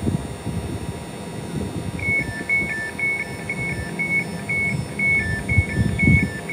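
A train's door-closing warning: a fast, steady run of alternating high and low beeps that starts about two seconds in, over a low rumble with gusts of wind on the microphone.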